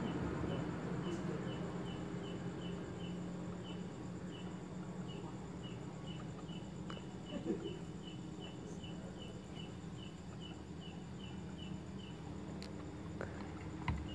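A cricket chirping steadily, a little over two short even chirps a second, over a low steady hum.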